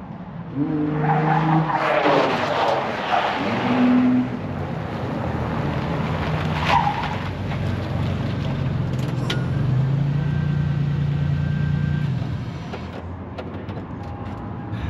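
A vehicle engine revving up and down several times, with tires squealing and skidding in the first few seconds.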